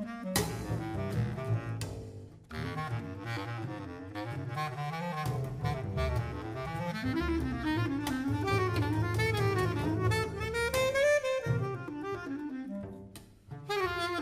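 Bass clarinet and double bass playing improvised jazz together. The bass clarinet runs melodic phrases that climb and fall over low double-bass notes, with short breaks about two seconds in and near the end.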